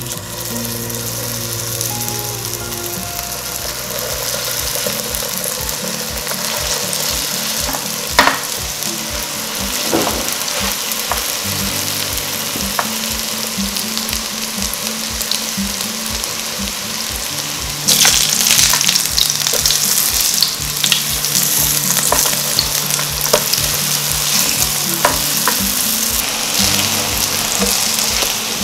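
Mashed-potato patties frying in cooking oil in a nonstick pan: a steady sizzle that grows louder about two-thirds of the way through, with one sharp tap about eight seconds in. Soft background music underneath.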